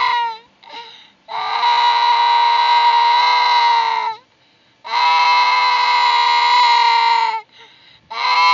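Young child crying in long, steady, high-pitched wails of about three seconds each, with short gasping breaths between them.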